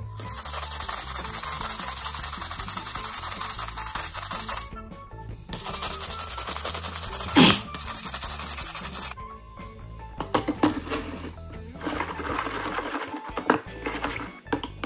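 A stiff-bristled hand brush scrubbing a pair of steel pliers, with long runs of bristles rasping over the metal, broken by a short pause. A sharp knock about seven seconds in is the loudest sound. Background music plays throughout.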